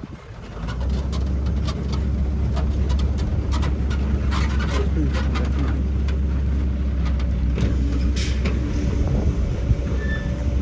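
Heavy diesel engine of earthmoving machinery running with a deep steady drone that comes in strongly about half a second in, with scattered knocks and clatter over it.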